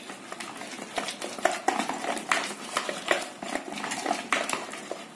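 Wire whisk beating a thick gram-flour and semolina batter in a bowl, an irregular run of quick clicks, several a second, as the wires strike the bowl.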